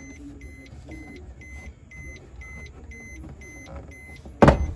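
Car's warning chime beeping steadily about twice a second, as with the key left in the ignition and the driver's door open. A sharp knock sounds near the end.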